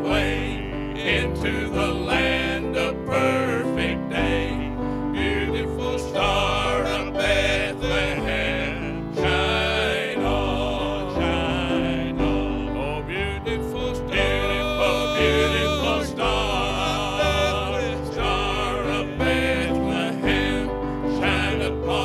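A men's vocal group singing into microphones with instrumental accompaniment and a steady bass line.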